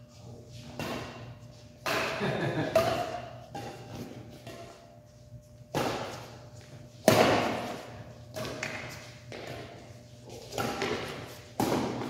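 A few heavy thumps, about four, the loudest a little past the middle, with indistinct voices in the background.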